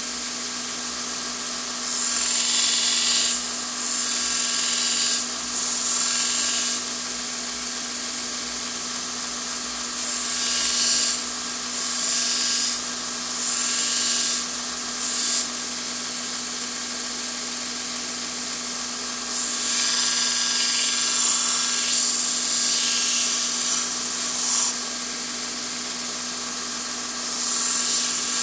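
Power grinder running with a steady hum, and repeated bursts of high, hissy grinding each time the small steel fish-scaler blade of a pocket knife is pressed to it, shaping it into an awl; the bursts stop and start as the steel is lifted off, with one longer pass about two-thirds of the way through.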